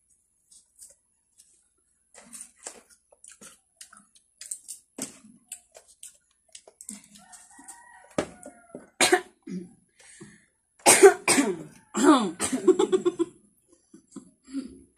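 Faint clicks and chewing from people eating crisp water apples, then loud coughing mixed with laughter from about eleven seconds in.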